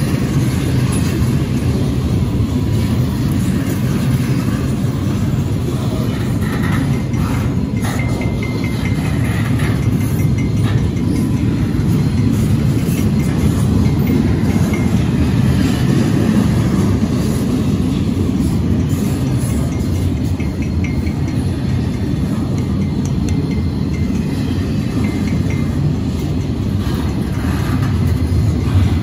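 Double-stack intermodal freight train's well cars rolling past: a steady low rumble of steel wheels on the rails.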